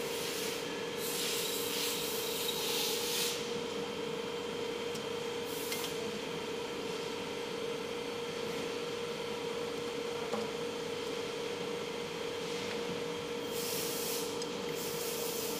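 Steel cold-welding die handled by hand, its metal parts sliding and rubbing against each other in a few short scraping stretches, over a steady electrical hum.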